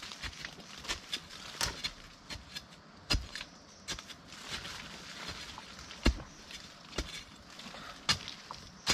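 Long hand-held digging bar stabbing repeatedly into sandy, stony soil, loosening earth around buried roots: irregular knocks about once a second, the loudest about six seconds in, with small clicks and scrapes of loose dirt and debris between them.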